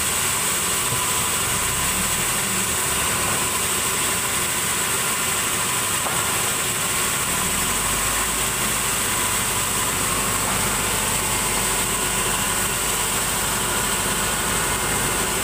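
Large sawmill band saw running unloaded, a steady machine noise with a high hiss, while no log is being cut. A deeper low rumble joins about halfway through.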